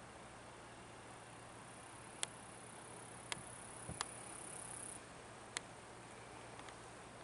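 Faint outdoor ambience: a steady low hiss with four sharp clicks spread through it, and a thin, very high steady whine lasting about two seconds in the middle.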